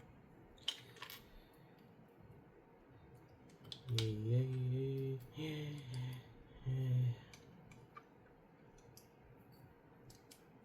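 Plastic LEGO pieces clicking and clattering as they are handled and pressed together, in scattered sharp clicks. From about four to seven seconds in, a man's voice sounds briefly without clear words.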